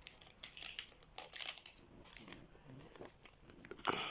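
Small packaging being handled: a series of short, sharp crinkles and rustles, the loudest near the end.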